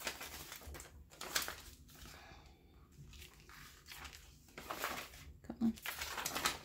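Sheets of protective paper on a diamond painting canvas rustling and crinkling in short bursts as they are lifted and folded back by hand.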